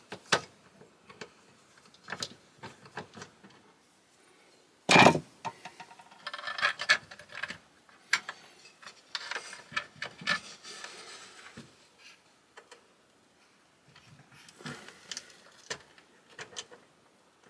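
Hands working wires and terminal screws in a metal electrical combiner box: scattered small clicks and taps with stretches of rubbing and scraping, and one sharp knock about five seconds in.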